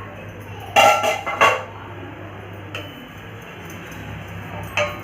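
Cookware clanking: a lid being lifted off the dosa tawa and set down, with a quick cluster of clanks about a second in and another lighter clank near the end.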